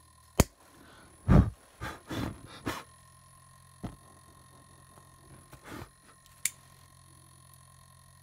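Disposable lighter being flicked several times: sharp clicks and a run of short scraping rasps from the flint wheel.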